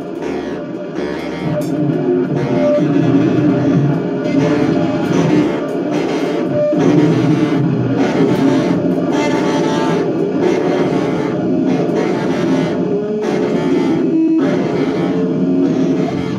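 Loud, dense free-improvised noise music: a distorted, effects-laden wall of sound from an instrument played on a tabletop. It comes in sharply, swells over the first few seconds, and falls back right at the end.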